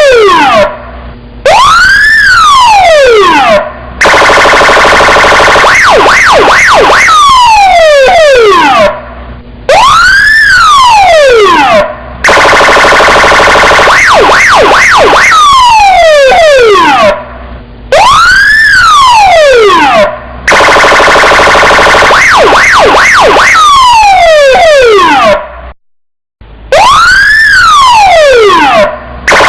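Electronic police car siren cycling through its tones. A steady harsh tone gives way to a few quick chirps and then a long falling wail, and after a short break comes a whoop that rises and falls. The pattern repeats about every eight seconds.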